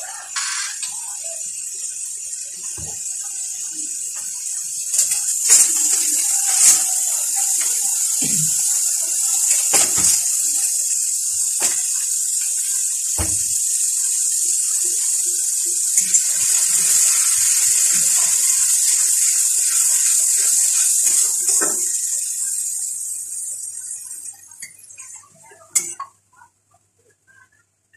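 Grated onion and spice masala sizzling steadily in hot oil in a wok, with a few sharp clinks of a utensil against the pan. The sizzle fades away near the end, just as a spatula stirs the masala.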